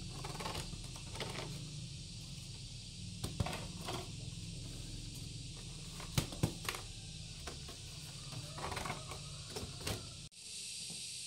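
Woven bamboo baskets being handled and nested one inside another: the bamboo strips creak and rustle, with a few sharp knocks as the baskets bump together.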